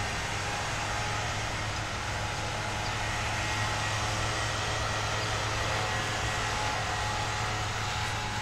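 Steady outdoor background noise: a constant low hum under an even hiss, unchanging throughout.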